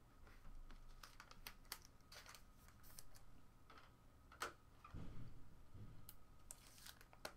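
Faint, irregular clicks and taps of trading cards being handled, with a soft low thump about five seconds in.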